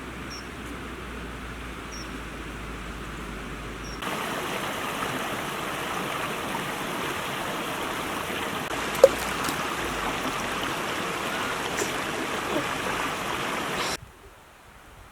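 River water running steadily over rocks, louder from about four seconds in and cut off abruptly near the end, with one sharp click about nine seconds in.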